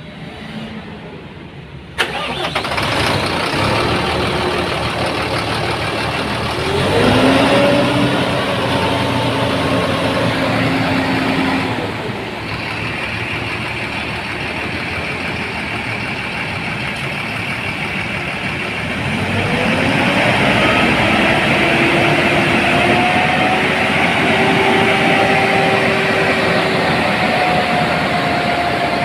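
Mercedes-Benz OH 1526 bus's rear-mounted six-cylinder diesel engine starting with a sudden catch about two seconds in, then running loudly. Its pitch rises and holds as it is revved, around seven seconds in and again from about twenty seconds in.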